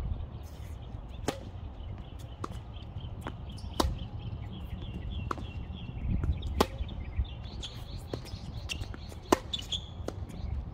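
Tennis ball struck by rackets and bouncing on a hard court during a serve and rally: sharp pops every second or so, beginning with the serve about a second in.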